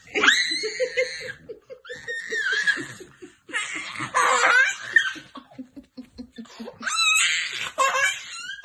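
A toddler laughing in loud, high-pitched bursts. Under it, a lower laugh goes in short even pulses for the first several seconds, slowly falling in pitch.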